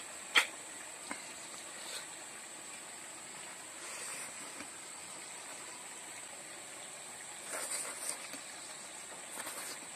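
Quiet eating noises as food is taken by hand and eaten: a sharp click about half a second in, then a few softer clicks and smacks later on. Under them runs a steady outdoor hiss with a thin, steady high whine.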